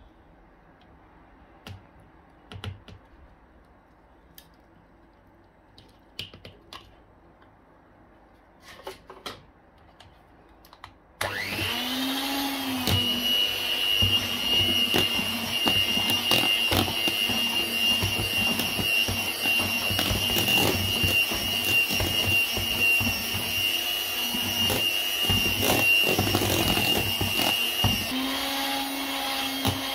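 A Cookworks electric hand mixer switched on about a third of the way in, its beaters whirring through a thick cream cheese mixture in a plastic bowl with a steady high whine. Before that there are only a few light knocks; near the end the motor's note changes.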